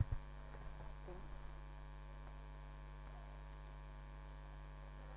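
Steady electrical mains hum, with a click at the start and a faint murmured voice in the first second and a half.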